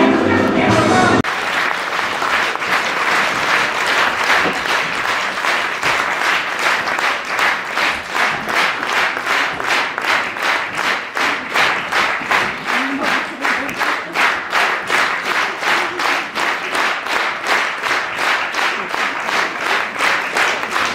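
Theatre audience applauding, the music stopping about a second in; the applause soon falls into rhythmic clapping in unison, several claps a second.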